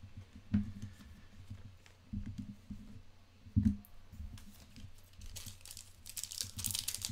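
A few soft knocks, then from about five seconds in the crinkling and tearing of a Panini Select soccer trading-card pack's wrapper as it is opened by hand.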